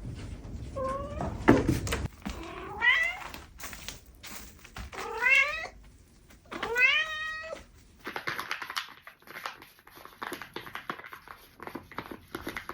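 Domestic cat meowing four times, each call rising in pitch, with a thump about a second and a half in. After about eight seconds the calls stop, and faint clicks and rustles follow.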